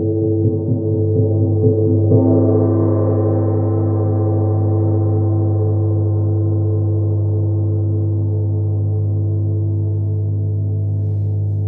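Large hanging gong worked with a soft mallet in quick light strokes, with a stronger stroke about two seconds in that brightens it. After that it is left to ring on, a long shimmering wash over a deep steady hum that fades very slowly.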